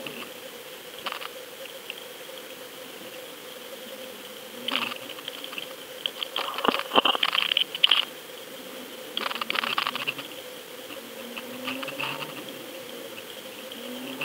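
Underwater camera audio: a steady electronic hum and high whine, broken by several bursts of clicking and crackling. The loudest bursts come between about six and eight seconds in.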